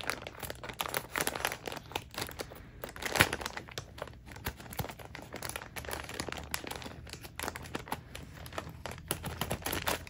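Clear plastic packaging bag crinkling and rustling in irregular crackles as it is handled and opened, with one louder crackle about three seconds in.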